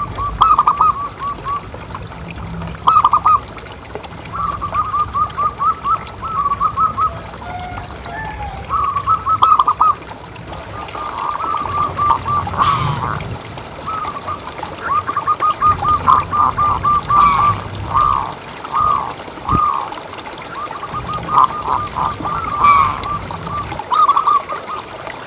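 Zebra doves (perkutut) calling: phrases of quick, rolling cooing notes repeated over and over, against a steady trickle of water.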